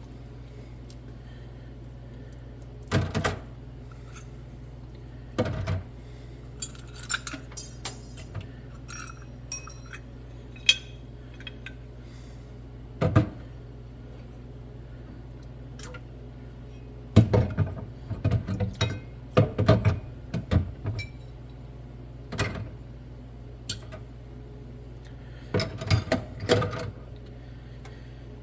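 Loose metal coffee-grinder parts being handled and set down: scattered knocks and clinks, with a quick run of knocks around two-thirds through, over a steady low hum.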